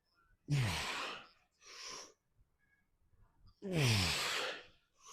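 A man's forceful breathing during exercise reps: two hard exhales about three seconds apart, each starting with a short falling grunt, with a quieter breath in between.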